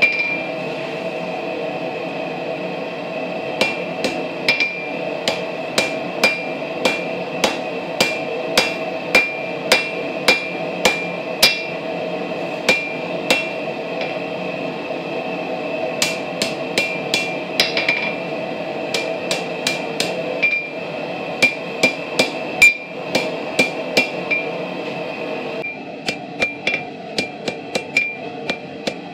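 Hand hammer striking a red-hot railroad spike on a steel anvil, drawing out the steel: runs of blows about two a second, each with a bright ring, broken by short pauses.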